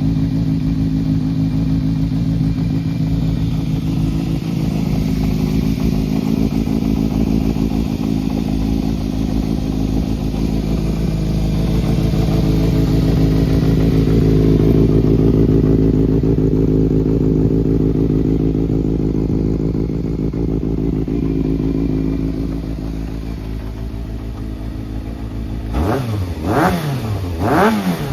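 1996 Yamaha XJR400's air-cooled inline-four idling steadily, then blipped through about three quick revs near the end. The seller describes it as running well, with no abnormal noises.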